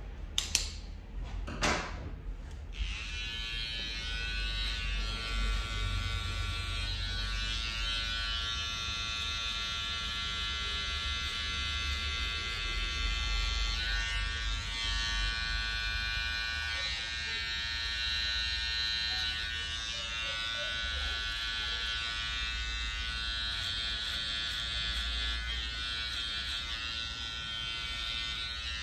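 Electric hair clipper buzzing steadily as it cuts hair, started after a few sharp clicks in the first couple of seconds.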